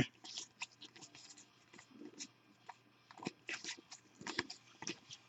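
Baseball trading cards being flipped through by hand: faint, irregular soft clicks and slides of card on card.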